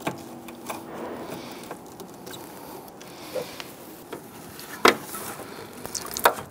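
Hands fitting a rubber lower radiator hose onto the radiator and working its clamp: scattered light clicks, knocks and rubbing, with a sharper knock about five seconds in and another just before the end.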